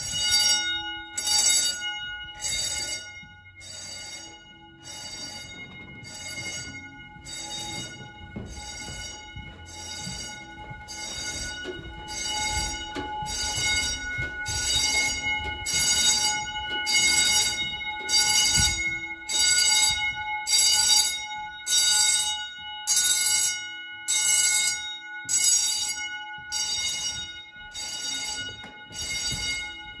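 Edwards 439D fire alarm bells ringing in alarm, sounding in regular pulses a little faster than one a second, louder through the middle.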